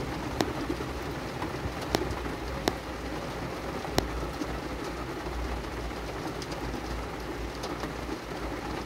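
Heavy rain falling on a stopped car's roof and windshield, heard from inside the cabin as a steady hiss with a few sharp taps.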